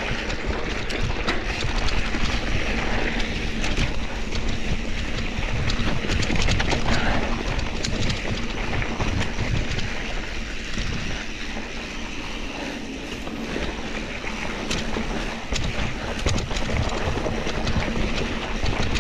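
Mountain bike descending a dirt-and-rock singletrack: tyres rolling and crunching over the trail, with frequent quick rattles and knocks from the bike over rocks and roots, under a constant rumble of wind on the microphone.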